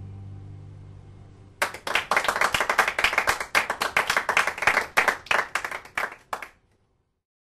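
The last chord of an acoustic guitar and electric bass rings and fades out. About a second and a half in, a small audience starts clapping. The applause runs for about five seconds and is cut off abruptly.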